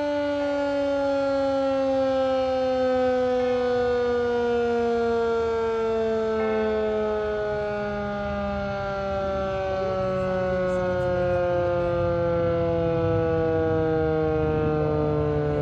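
Federal Signal 2001-130 outdoor warning siren winding down at the end of a one-minute alert. Its wail falls slowly and steadily in pitch, and its loudness rises and dips gently as the rotating head sweeps.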